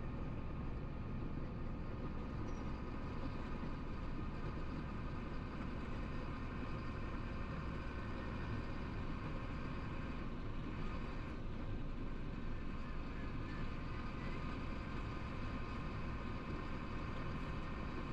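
Chenglong heavy truck cruising at highway speed, heard from inside the cab: a steady engine drone and road rumble.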